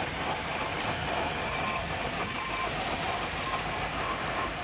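Steam traction engine running, a steady, even mechanical noise with no breaks.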